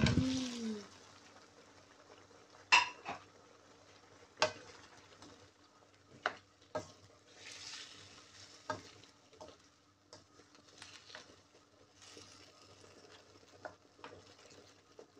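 Cubed potatoes dropping into a wok of simmering adobo sauce, then a spatula stirring them in, with sharp clacks of the spatula against the black nonstick wok every second or two and a faint simmering sizzle underneath.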